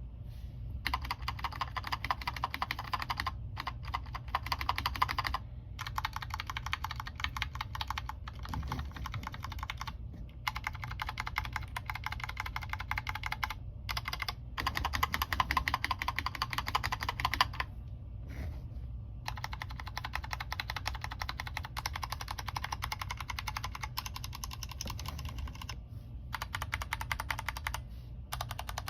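Vortex Race 3 mechanical keyboard being typed on fast, a dense run of key clicks broken by several short pauses.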